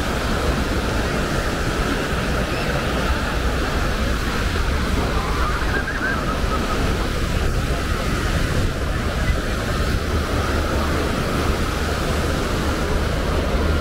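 Ocean surf breaking and washing on a sandy beach as a steady roar, with wind buffeting the microphone and faint crowd voices.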